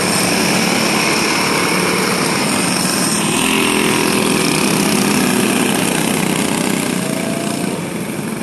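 The small engines of a pack of racing karts running together as they circle the dirt oval at slow lineup pace. The sound grows louder for a few seconds from about three seconds in as karts pass close, then eases near the end.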